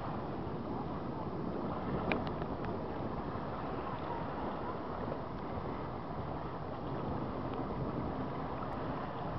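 Small waves washing and lapping onto a sandy riverbank, with wind rumbling on the microphone.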